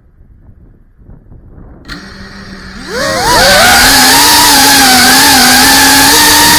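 Quadcopter drone's motors starting with a low steady hum about two seconds in, then spinning up with a sharp rise in pitch about a second later into a loud, steady propeller whine as it lifts off. The pitch wavers slightly as the drone holds and adjusts in the air.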